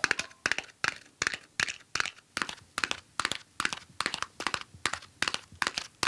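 Foley galloping-horse hoofbeats made by clapping a matchbox in the hands: quick clusters of sharp clacks repeating about two to three times a second in a steady gallop rhythm.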